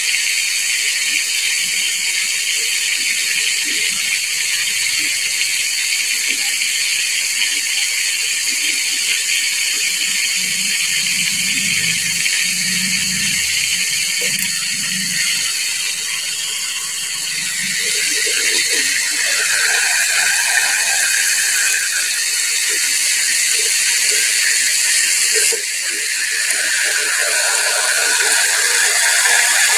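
Whole chicken deep-frying in hot oil in a pot, sizzling steadily.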